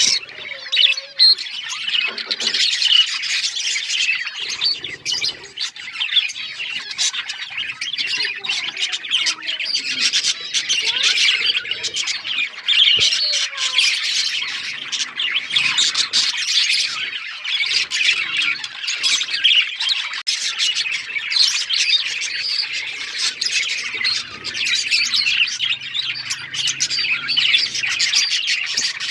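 A flock of budgerigars chattering: many overlapping chirps, warbles and sharper squawks at once, without a break.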